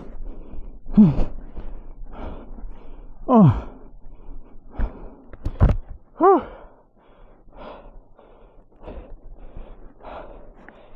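A man breathing hard and groaning with exertion: three loud falling groans in the first half, then quieter panting.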